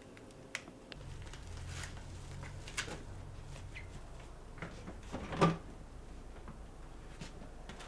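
Kitchen handling noises: a few light clicks and knocks from a plastic bowl and a refrigerator door, with one louder knock about five and a half seconds in. A low steady hum comes in about a second in.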